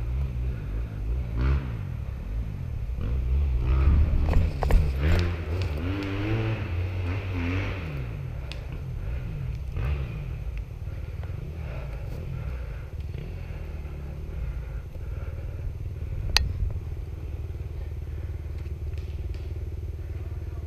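Rumbling wind and movement noise on a body-worn action camera, with rustling as the wearer shifts behind cover, busiest in the first half. A single sharp snap sounds about sixteen seconds in.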